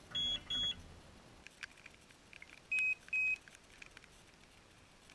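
Electronic carp bite alarms beeping: two short beeps at a higher pitch, then about two seconds later two more at a lower pitch, with faint clicks in between. The two pitches fit two different alarms on the rod pod, each set to its own tone.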